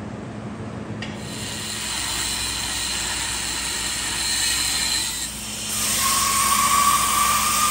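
Angle grinder grinding steel, starting about a second in. It dips briefly near five seconds and comes back louder about six seconds in, with a steady whine.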